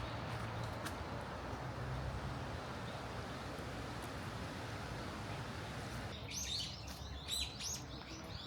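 A steady outdoor noise haze, then about six seconds in, small birds chirping in quick repeated high calls.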